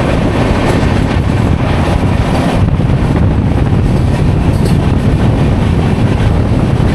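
Passenger train running at speed, heard from outside an open coach door: a steady, loud rush of wind and wheel noise from the track.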